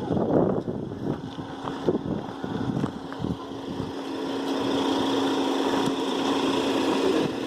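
An engine running steadily, with a constant low hum from about a second and a half in.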